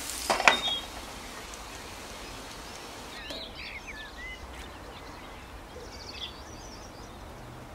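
Birds chirping in short, scattered calls over a steady background hiss, with a sharp knock about half a second in.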